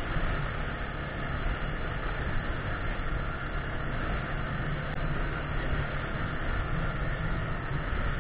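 Yamaha Grizzly 600 ATV's single-cylinder four-stroke engine running steadily at cruising speed, under a constant haze of wind and tyre-on-gravel noise.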